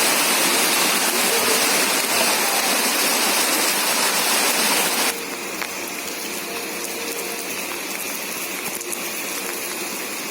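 Heavy rain falling in a steady hiss. About halfway through it cuts abruptly to quieter, duller rain.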